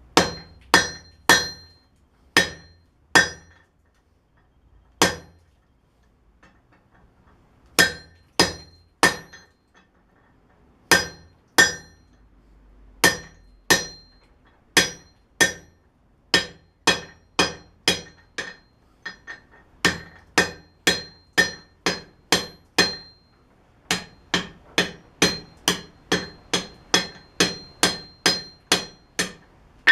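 Blacksmith's hand hammer striking hot steel on an anvil, each blow followed by a short metallic ring. The blows come in scattered groups with pauses at first, then settle into a steady rhythm of about two a second near the end.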